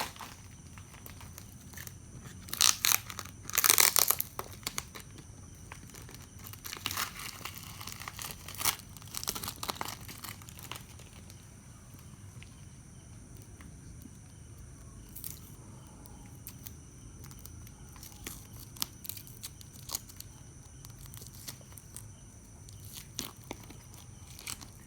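Packaging being handled, crinkling and tearing in bursts, loudest about three to four seconds in and again around seven to ten seconds, then quieter with scattered light clicks.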